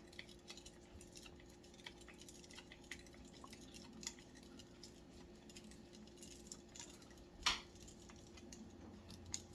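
Faint small plastic clicks and taps from handling a Retevis H777 handheld radio while its spring-loaded belt clip is fitted, with one sharper click about seven and a half seconds in.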